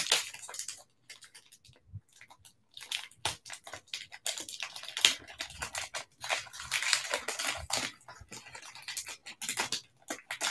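Wrapper of a 1991-92 Fleer basketball card pack being torn open and peeled off the cards by hand, crinkling in irregular crackling bursts with short pauses.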